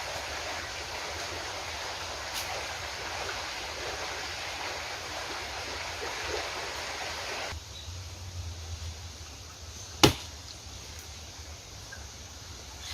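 Steady rushing outdoor noise that cuts off suddenly partway through, leaving a quieter background broken by one sharp click.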